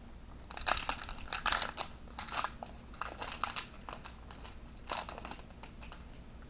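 Wrapper of a 2007 Topps Allen and Ginter baseball card pack crinkling as it is torn open and pulled off the cards, in irregular bursts of crackle.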